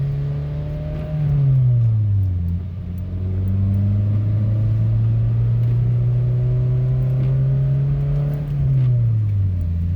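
The 2005 Scion tC's 2.4-litre four-cylinder engine pulling under acceleration, heard from inside the car. Its pitch climbs slowly, then drops twice as the manual gearbox is shifted up, ending in third gear.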